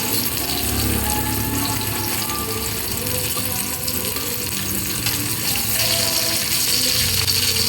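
Background music over a steady hiss.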